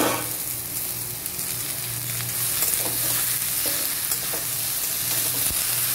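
Freshly added pieces of ridge gourd and tomato sizzling steadily in hot mustard oil in a metal kadhai, with a spatula stirring them. A short loud burst right at the start as the vegetables land in the oil.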